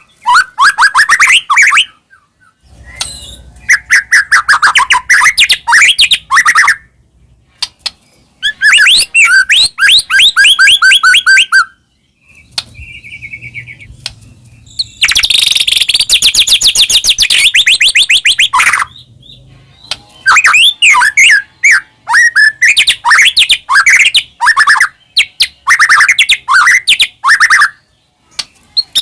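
White-rumped shama (murai batu) singing loudly: bursts of fast whistled phrases, rapid trills and chattering notes, broken by short pauses.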